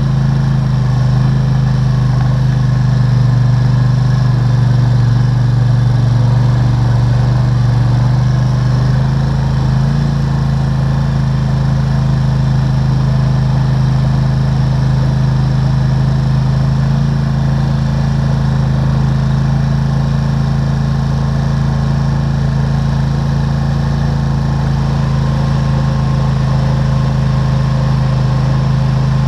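ATV (four-wheeler) engine running steadily while driving, its low hum dropping slightly in pitch about ten seconds in.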